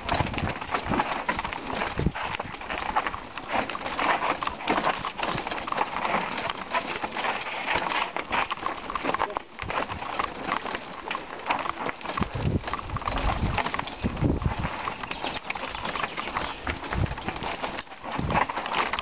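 Mountain bike clattering down a rocky trail: a dense, continuous run of small knocks and rattles as the tyres, chain and frame jolt over stones. Heavier low thumps come in over the second half.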